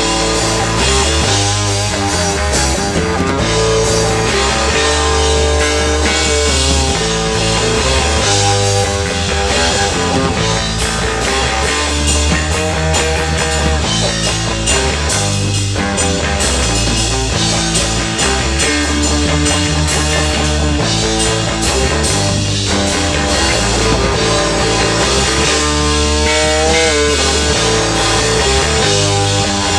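Rock band playing live, psychedelic rock with guitar, a steady bass line and drum kit.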